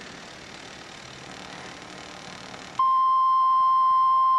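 A steady hiss from a TIG welding arc on stainless steel. About two-thirds of the way through, a loud, steady electronic warning tone near 1 kHz cuts in abruptly and holds, an alert marking a safety caution.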